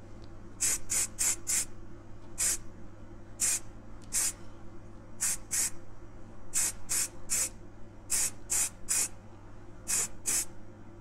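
Spray paint hissing out in short bursts, often two to four in quick succession, as metallic red paint goes onto a small die-cast car body. A steady low hum runs underneath.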